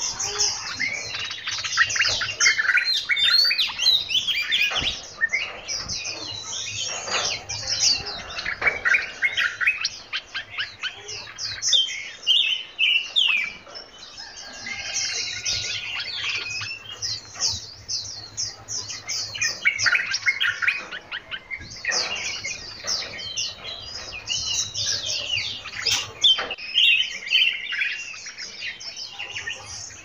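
Songbirds of several kinds chirping and singing at once, a dense chorus of quick, high, repeated notes and short trills overlapping throughout.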